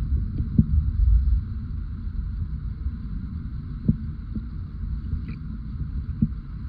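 Underwater recording of the sea: a steady low rumble of water, with three short soft knocks spread through it.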